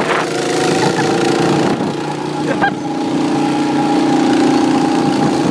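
Small go-kart engine running steadily at speed, with a rushing noise over it as the kart moves.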